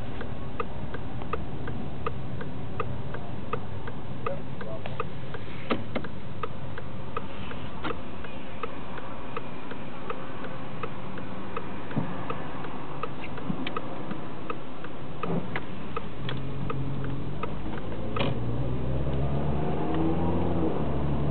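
Car turn-signal relay clicking steadily, about two to three clicks a second, over cabin noise. Near the end the engine note rises as the car accelerates.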